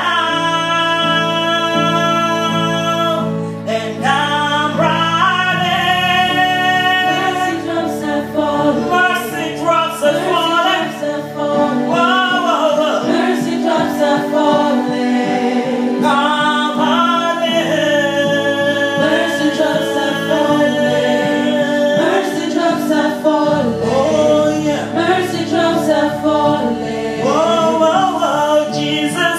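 Gospel worship song sung by voices over held low accompanying chords that change every few seconds.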